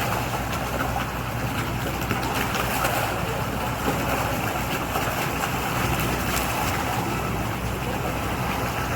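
A boat's engine running steadily with a low hum, over a constant rush of water and wind.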